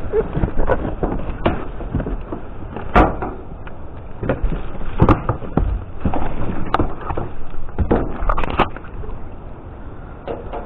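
Rummaging through plastic rubbish bags inside a bin: rustling and crinkling plastic with scattered clicks and several sharper knocks as the contents are shifted about.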